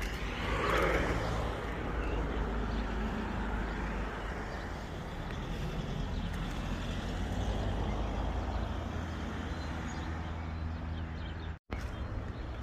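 Steady low hum of a car engine running, under general outdoor noise, with a louder swell about a second in. The sound cuts out for an instant near the end.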